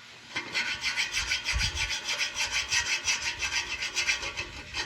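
Rapid, continuous back-and-forth scraping by hand on a hard surface, starting about half a second in and pausing briefly near the end.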